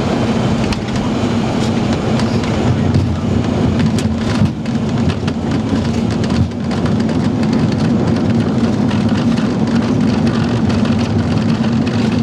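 Boeing 737 Classic cockpit noise during landing: a steady rush of engine and airflow noise over a constant low hum, with a few light clicks and rattles in the middle.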